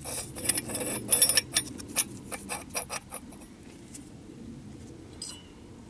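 Metal parts of a cut-open scroll compressor clinking and knocking together as they are handled. A quick run of light clicks comes over the first three seconds, then a few scattered ones.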